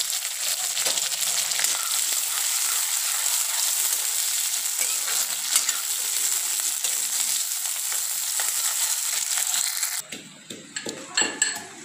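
Sliced onions sizzling in hot oil in an aluminium kadai, stirred with a metal ladle, a steady hiss with faint scraping ticks. About ten seconds in the sizzle cuts off suddenly, leaving a few light knocks.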